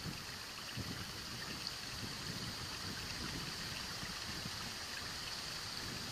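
Steady outdoor background hiss, something like trickling water, with irregular low rustling and rumble underneath.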